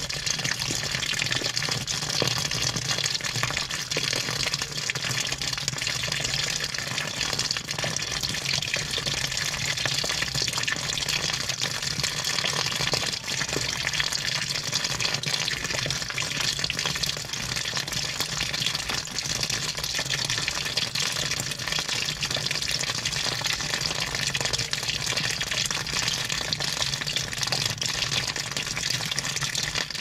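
Steady rush of water churning inside a washing machine drum, unbroken, with a low hum underneath.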